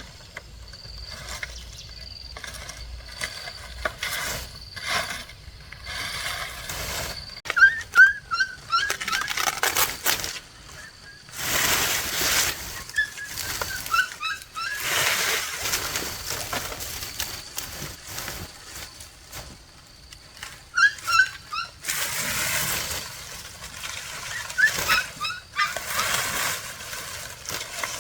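Short bird chirps in quick little runs, several times, between bouts of loud scraping and rustling noise.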